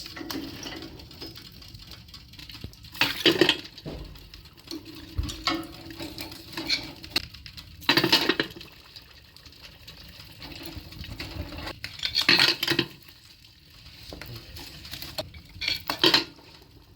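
Red-hot pieces of metal door hardware quenched in oil: a short hiss and sizzle about four times, a few seconds apart, with light metallic clinks.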